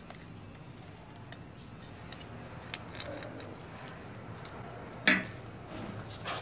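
Quiet handling noises with small scattered clicks, a sharp knock about five seconds in and a smaller knock near the end.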